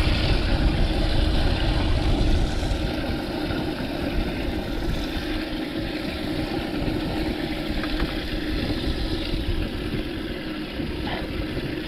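A small motor hums steadily, over a low rumble of wind on the microphone.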